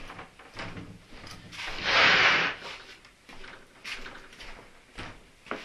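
Metal-cased battery charger being slid and turned on a wooden workbench: a scraping slide of about a second, about two seconds in, then a few light knocks and clicks.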